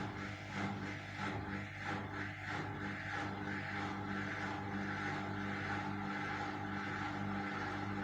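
Washing machine running: a steady motor hum under a rushing noise, pulsing about one and a half times a second for the first three seconds and then even.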